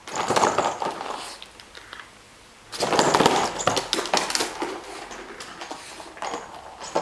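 A West Highland white terrier playing on a hardwood floor, its claws scrabbling and clicking as it runs and spins with a toy. The clatter comes in a short burst at the start, stops briefly, then returns louder a little before halfway and tails off into softer clicking.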